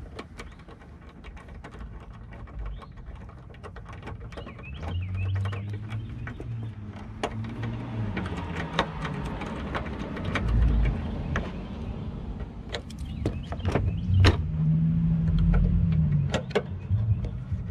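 Ratchet on a long extension driving the headlight assembly's mounting screws, with irregular clicks and small metal taps as it is turned and reset. A low engine hum swells and fades twice, about five seconds in and again near the end.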